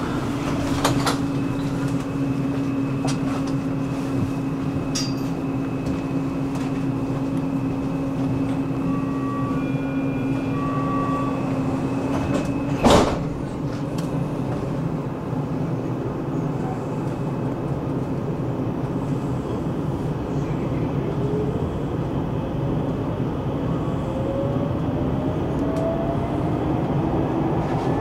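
Metro train running: a steady rumble with a held motor hum, a single loud clunk about halfway through, and a rising whine of the traction motors in the last several seconds as the train picks up speed. A few short beeps sound about a third of the way in.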